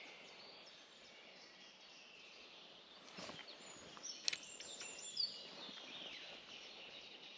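Quiet outdoor background hiss with a few faint bird chirps, and a couple of sharp clicks about three and four seconds in.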